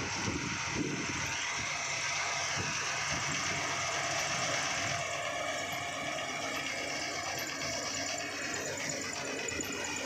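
Self-propelled combine harvester running steadily while cutting standing wheat, its engine and threshing machinery together making a continuous mechanical drone.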